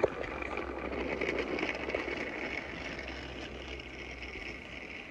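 Motorized toy train whirring steadily as it runs along plastic track, gradually fading as it moves away.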